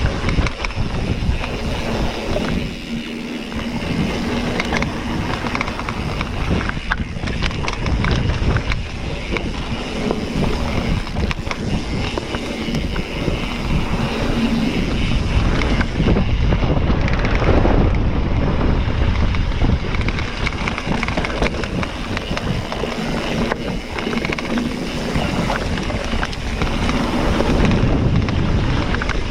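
Wind rushing over the microphone of a mountain bike rider's camera, with the bike's tyres on a dirt trail and frequent small knocks and rattles as it rides over bumps.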